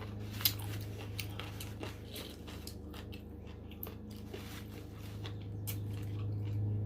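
Close-miked chewing and biting of crunchy fried food, with scattered crisp crunches and clicks, the sharpest about half a second in, over a steady low hum.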